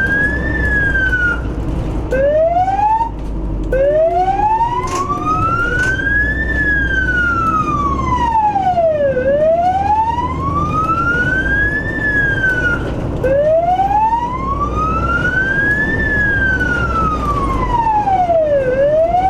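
Emergency vehicle siren wailing, its pitch slowly rising and falling about every five to six seconds, broken off twice in the first few seconds and then running on unbroken. A low rumble sits underneath.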